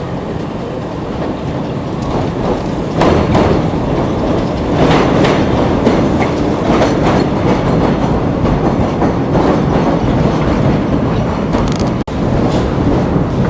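Elevated subway train running on steel rails, wheels clicking over the rail joints, getting louder about three seconds in. The sound cuts out for an instant near the end.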